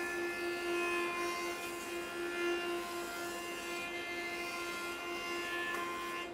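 A jointer running with a steady whine as a board is fed across its spinning cutterhead.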